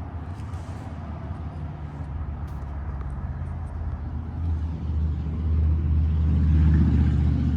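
A low, steady rumble that grows louder toward the end, with a few faint light clicks early on.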